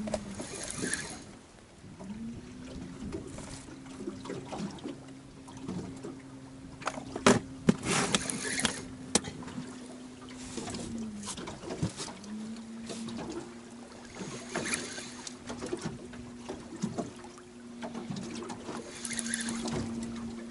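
Choppy waves lapping and slapping against an aluminium boat's hull in a strong wind, with a few sharp knocks about halfway through. Under it a steady low motor hum spins up, runs for several seconds, winds down, and then starts again.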